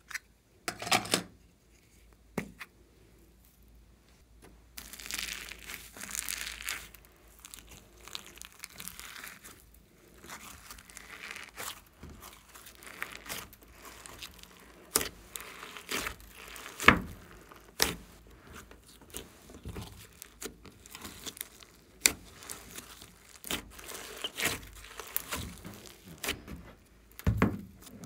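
Hands stretching, pulling and squishing thick slime mixed with clay and glitter sequins, giving crackling, tearing sounds with sharp clicks scattered throughout.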